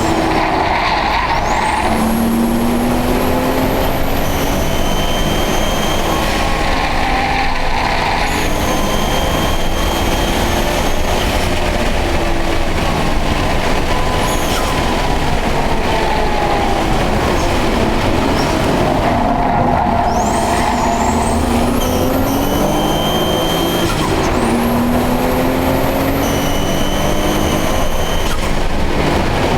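Nissan Skyline ER34's turbocharged RB25DET straight-six, fitted with a GT-RS turbo, being driven hard through the gears, with a high-pitched whine ("kyuiin") that comes in for a few seconds at a time at high revs, four or five times. The whine appears only once oil temperature is up, and the owner wonders whether it is knocking, a failing turbo or the water pump; boost is still full.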